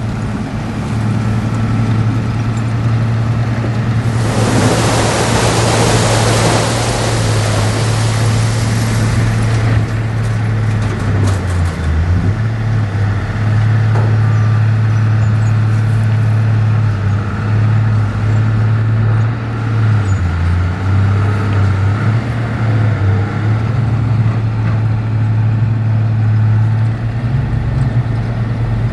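Heavy diesel engine of earthmoving machinery running steadily, its pitch dipping briefly a few times as the load changes. About four seconds in, a loud hissing rush starts and lasts about five seconds.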